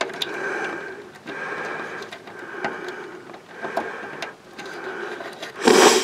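Heavy, congested breathing close to the microphone, coming in roughly one-second breaths, with small clicks of plastic front-panel connector plugs being handled and pushed onto the motherboard header. A louder, sudden noise comes near the end.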